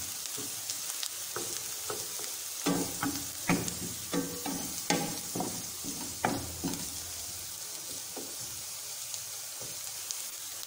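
Chopped onion and green chillies sizzling in oil in a non-stick frying pan, lightly frying on a low flame. A wooden spatula stirs and scrapes them in short strokes through the first several seconds, then the steady sizzle goes on alone.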